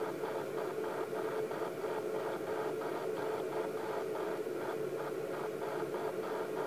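Steady static hiss and hum from a video baby monitor's speaker, with a faint fast pulsing several times a second.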